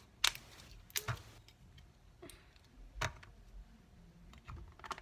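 Green slime being squeezed and stretched by hand, giving off scattered sharp clicks and pops, about five over a few seconds.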